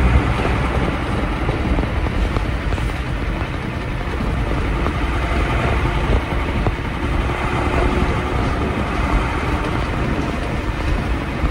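Mercedes-Benz 1417 truck's freshly overhauled diesel engine running steadily while the truck is driven, heard from inside the cab with tyre and wind noise.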